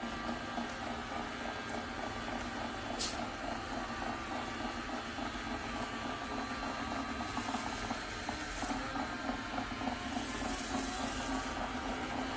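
AirGrab robot vacuum cleaner running, a steady motor and fan hum with a sharp click about three seconds in and brief bursts of hiss toward the end.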